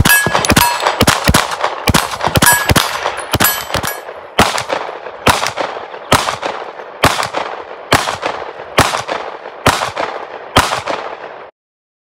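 A rapid string of 9mm pistol shots from a compensated Atlas Erebus pistol, with steel targets ringing and clanging after the hits. About four seconds in, the sound changes to single shots from a Daniel Defense MK18 5.56 carbine, about one a second, eight in all, and it cuts off just before the end.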